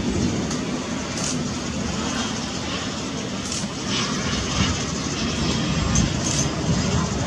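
Twin turbofan engines of a Cessna UC-35A business jet on landing approach with gear down, a steady rushing jet noise.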